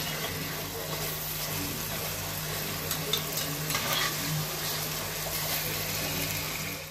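Potatoes, onions and green masala sizzling in hot oil in an enamelled cast-iron pot, with a metal spatula stirring and scraping against the pot, giving a few short clicks about three to four seconds in.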